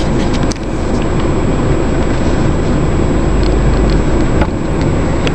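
Steady low rumble of a car's engine and tyres on a rough dirt track, heard from inside the cabin.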